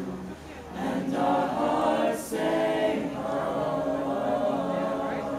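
A school jazz choir singing a cappella in close harmony, holding sustained chords. The sound dips briefly just after the start, then swells louder about a second in.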